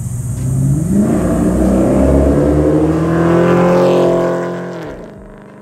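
Chevrolet Suburban V8 with long-tube headers, no catalytic converters and a Magnaflow exhaust with a built-in X-pipe, accelerating past. The engine note climbs for about three seconds, then drops in pitch and fades as the truck goes by.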